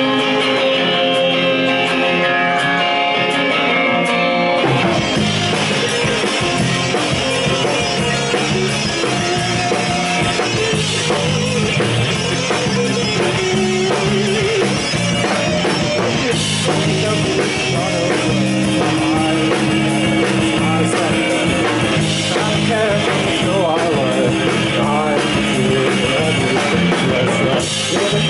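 Live rock band playing a song's instrumental opening: guitar alone at first, then bass guitar and drum kit come in about five seconds in and the full band plays on.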